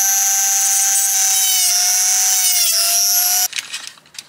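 Corded rotary tool with a cutting disc whining at high speed while trimming the plastic latch ramps of a car air-vent housing. The pitch dips slightly twice as it cuts. It cuts off about three and a half seconds in, followed by faint taps.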